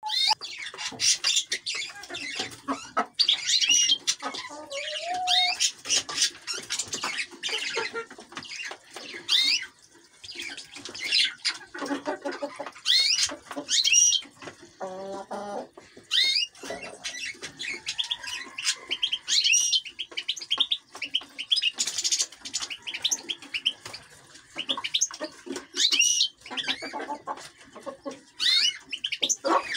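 Goldfinches and canaries in an aviary chirping and twittering, many short, high calls overlapping, with now and then a flutter of wings.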